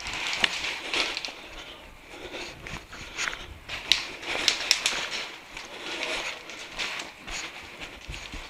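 Hurried footsteps crunching over a thin cover of frozen snow and forest litter, irregular, with a few sharp clicks among them.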